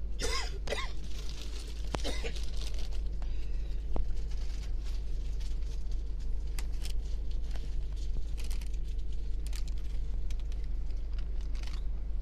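Steady low rumble inside the cabin of a Scania Metrolink HD coach, with scattered clicks and rattles.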